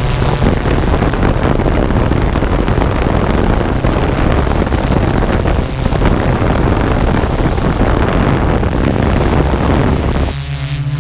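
Quadcopter drone's propellers humming steadily, with wind rushing over the onboard camera's microphone. The low propeller hum stands out more clearly about ten seconds in.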